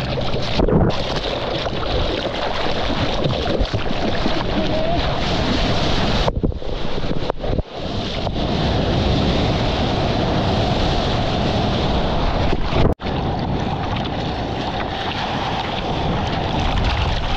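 Ocean surf with wind rushing on the microphone: a loud, steady wash of noise, broken by brief sudden dropouts about six, seven and a half and thirteen seconds in.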